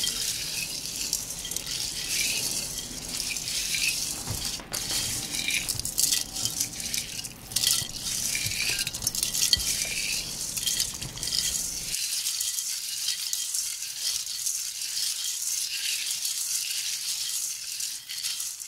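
Dry beech nuts and husks rattling and clattering against a perforated metal colander as a hand stirs them, a dense run of small clicks throughout.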